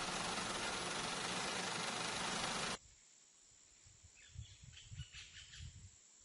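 A loud, steady rushing noise cuts off abruptly a little under three seconds in. It gives way to a much quieter outdoor ambience with faint high chirps and soft low thumps.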